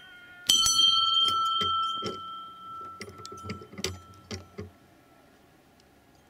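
Small metal bell in a wooden bell tower rung by pulling its rope: one loud clang that rings on, fading over about two and a half seconds, followed by several lighter knocks and clinks.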